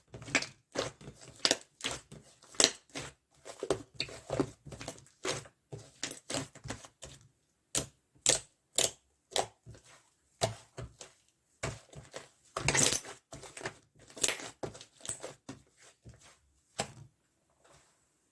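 Ochre-coloured slime being pressed and stretched by hand, giving an uneven run of short clicks and pops, with one longer, louder squish about thirteen seconds in.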